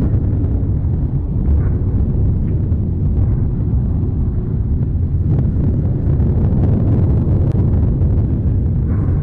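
Lava fountain erupting from Etna's Voragine crater: a continuous deep rumbling roar, with a few faint sharp cracks in the second half.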